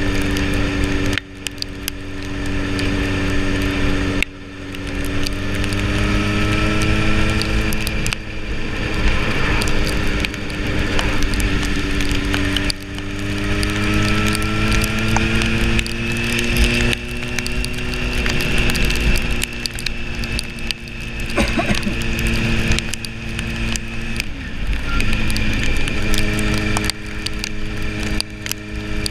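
Sport motorcycle engine running under way, its pitch climbing through the gears with a brief drop at each gear change (about a second in, around four seconds, around thirteen seconds), easing off past twenty seconds and pulling again near the end, over steady wind noise.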